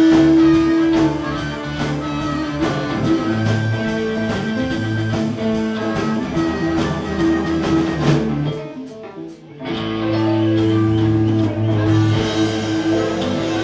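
Live blues-rock band playing: electric guitars, bass and drum kit. The band drops out briefly about nine seconds in, then comes back in with heavy low notes.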